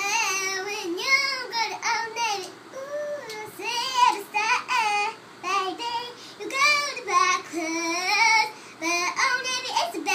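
A young girl singing an improvised tune unaccompanied, in short phrases that rise and fall in pitch with brief pauses between them.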